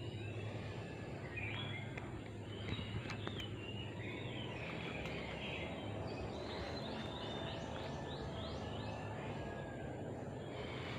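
Wild birds chirping and calling in short, varied notes over steady low background noise, with a quick run of short falling notes a little past the middle.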